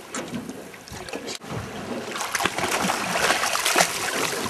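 A New Zealand yellowtail kingfish thrashing and splashing at the surface beside the boat as it is grabbed by hand, the splashing loudest in the second half.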